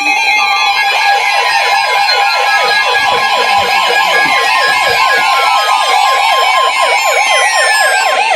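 Several NOAA weather radios sounding their warning alarms at once for an incoming tornado warning: a fast warbling siren sweeping about five times a second over a steady high tone, with slower falling sweeps repeating on top. It is loud and starts abruptly.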